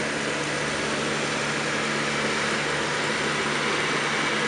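Diesel engines of rail maintenance-of-way track machines running in a steady hum as the machines travel along the track.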